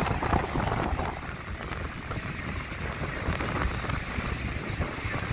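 Wind buffeting the microphone over the steady wash of rough surf breaking on a sandy beach.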